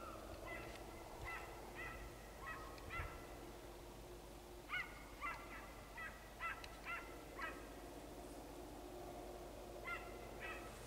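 Distant animal calls: short, clear pitched calls, each with a quick upward slide, repeated about two a second in three runs, faint over a steady low background.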